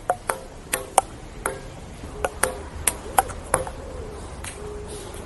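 Table tennis rally: a celluloid ball clicking off paddles and the table about ten times in quick, uneven succession, then the hits stop about three and a half seconds in.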